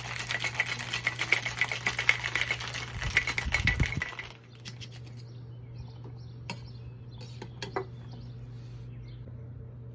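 Ice rattling hard inside a cocktail shaker being shaken, a fast clatter that stops about four seconds in. A few light clicks follow.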